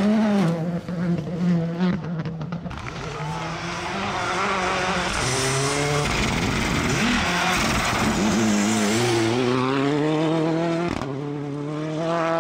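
Rally2 cars with turbocharged four-cylinder engines going past one after another on a gravel stage: engines revving hard and changing gear, with a few sharp cracks in the first two seconds and a stretch of rushing noise in the middle. Near the end the revs climb again.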